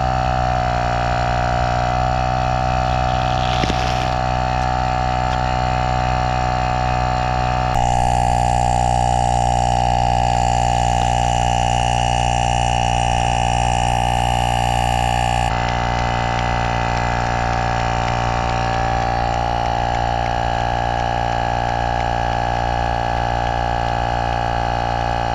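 Portable car-tyre air compressor running with a steady drone, pumping air into a soccer ball pinned under a car tyre. The tone shifts abruptly twice, about a third and about two-thirds of the way through.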